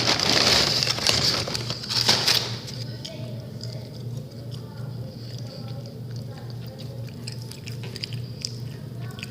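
Dense crunchy crackling for about the first two and a half seconds, then much quieter, with faint scattered clicks over a steady low hum.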